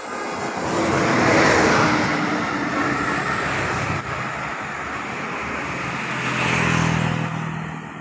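Road vehicles passing close by: a swell of engine and tyre noise about a second in and another around six to seven seconds in, with a steady low engine hum under the second.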